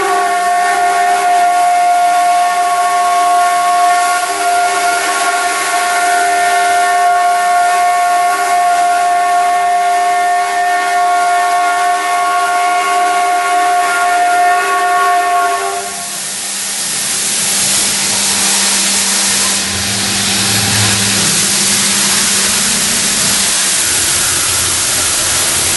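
CNC router spindle running with a steady high-pitched whine over a hiss. About two-thirds of the way through, the whine stops and a loud, even hiss takes over.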